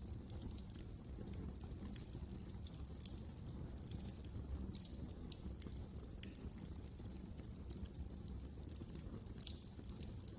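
Wood fire crackling in a fireplace: irregular small snaps and pops over a steady low rumble of the burning, with a sharper pop about six seconds in and another near the end.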